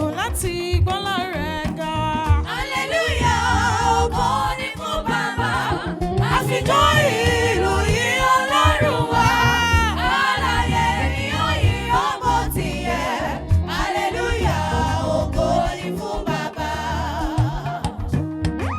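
Gospel music: melodic lines sung or played over band accompaniment with a steady beat.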